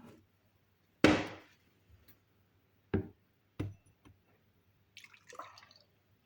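Kitchenware being handled: a loud knock about a second in, two sharper knocks around three seconds, then a short patch of light clinks and scrapes near the end.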